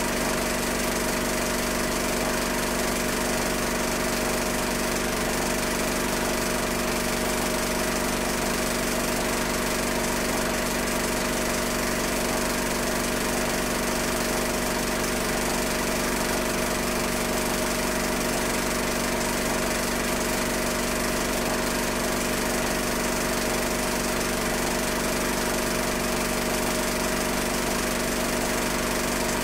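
Steady mechanical hum of a film projector running, with no change in level as the streetcar passes on screen; the 1956 home movie footage carries no sound of its own.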